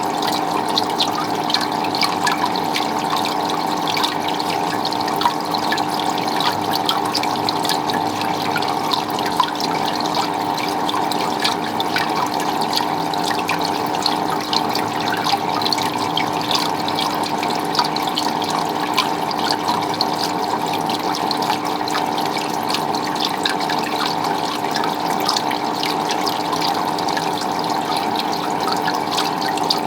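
Water running and splashing steadily, with many small trickling and dripping sounds and a steady hum underneath.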